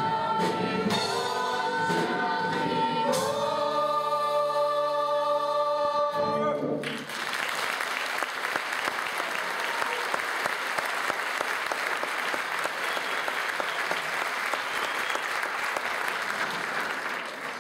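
A stage-musical cast sings a held closing chord together, shifting chords twice before cutting off about seven seconds in. The audience then breaks into loud, steady applause.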